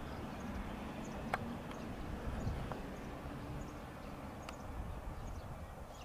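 Faint low background noise with a few isolated sharp clicks.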